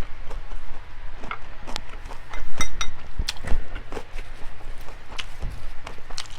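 Eating at a table: chewing and utensils tapping against dishes in a run of short clicks, with one ringing clink of metal or glass about two and a half seconds in.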